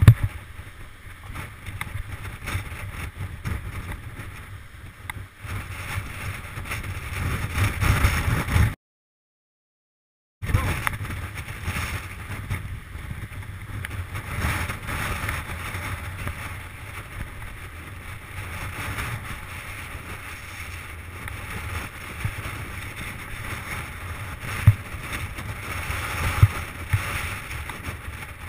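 Mountain bike riding fast down a rocky gravel trail, heard from a GoPro mounted on the bike: a steady rumble of tyres on stones and the bike rattling, with wind buffeting the microphone. A sharp knock comes at the very start and two more near the end as the bike hits bumps, and the sound cuts out completely for a second or two about a third of the way in.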